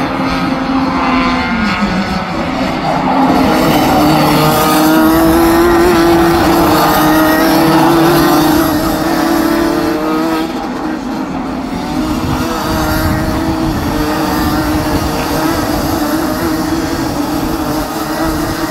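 A pack of Rotax Max 125cc two-stroke kart engines racing, several engines at once with their pitches rising and falling as they accelerate and lift; loudest about four to eight seconds in, as the pack passes closest.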